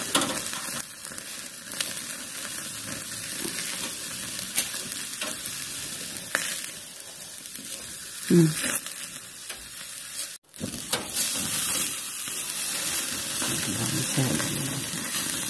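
Oiled chicken tikka pieces sizzling over hot charcoal: a steady hiss with a few sharp clicks. The sound drops out for a moment about ten seconds in.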